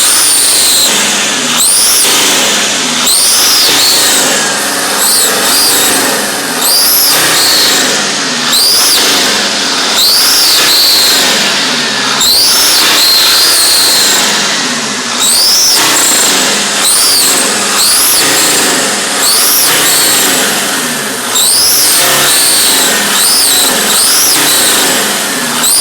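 2004 Mercedes Sprinter 2.7 L five-cylinder diesel engine being revved over and over, its turbocharger giving a loud high whistle that rises and falls with each rev, roughly once every second or so.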